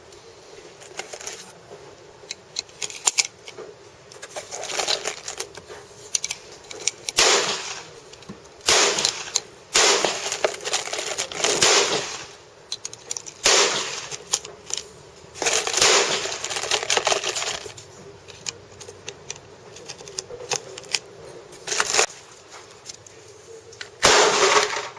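Glock 19 pistol being handled: scattered small clicks with several louder sliding, scraping stretches of about a second each.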